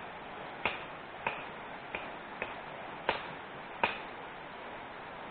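Shallow stream running steadily, with six sharp clicks at uneven intervals of about half a second during the first four seconds.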